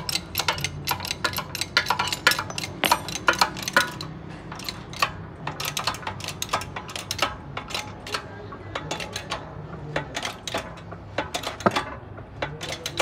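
Repeated sharp, irregular metallic clinks and clicks as steel press spacers are handled and set on a front wheel bearing in its steering knuckle under a hydraulic shop press.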